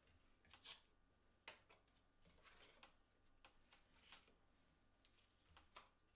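Faint cardboard and paper handling: a handful of short rustles and scrapes as a lens box's flap is opened and its contents handled.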